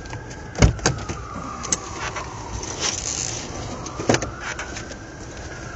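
Emergency vehicle siren wailing, rising and falling slowly about every four seconds, with several sharp knocks over it, the loudest a little over half a second in and another about four seconds in.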